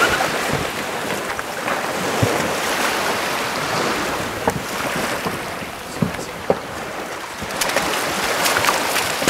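Water sloshing and splashing with wind noise on the microphone, broken by a few sharp knocks and a cluster of clicks near the end.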